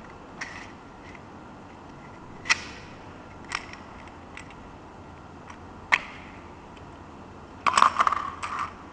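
Small plastic key chain tape measure housing being handled and opened: a few sharp separate plastic clicks, then a quick rattling run of clicks near the end as the case comes apart to reveal the screwdriver bits.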